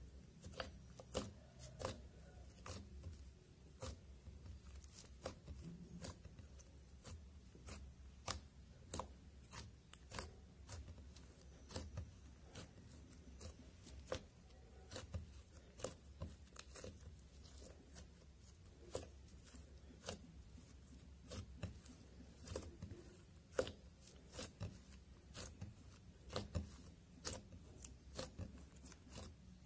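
Thick slime mixed with lipstick, glitter and baby powder being squeezed, stretched and poked by hand, making crisp irregular pops and clicks, several a second.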